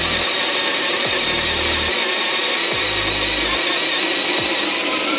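DeWALT DCD999 cordless combi drill running in first speed under load, boring through timber with a 54 mm self-feed bit. The motor runs steadily with a high whine that holds its pitch.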